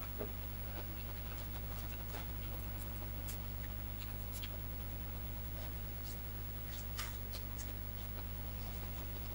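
Eating sounds at close range: scattered soft clicks and smacks of chewing and of fingers picking at food, with one slightly louder click about seven seconds in. A steady low hum runs underneath.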